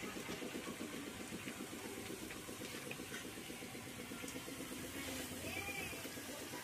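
A faint engine idling steadily, with a rapid even pulse.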